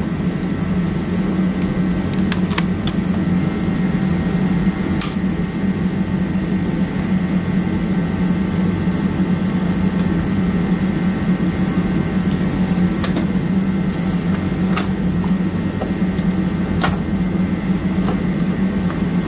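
Garage heater running with a steady, even hum. A few light clicks are heard now and then.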